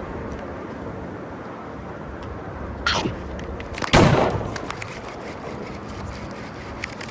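Two sudden splashes about a second apart, the second the loudest with a short wash trailing off: a big bass striking at a topwater lure on the surface and missing it.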